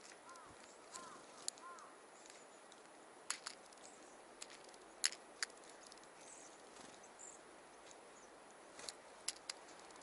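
Varied tit taking seeds from a hand-held metal tin: a dozen or so sharp, irregular clicks of its bill and feet on the tin. A few short rising-and-falling chirps in the first two seconds, and faint high bird calls.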